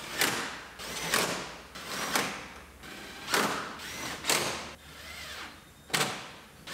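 Cordless drill/driver run in about six short bursts, roughly a second apart, driving in the bolts that hold the front bumper cover on.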